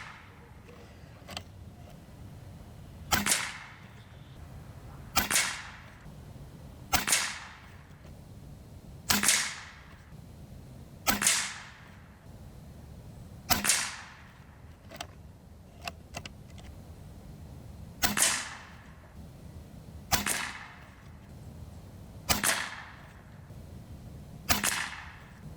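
Hatsan Neutron Star .22 PCP air rifle firing ten shots, one about every two seconds with a longer pause midway, each a sharp report with a short ringing tail. A few much fainter clicks fall between some of the shots.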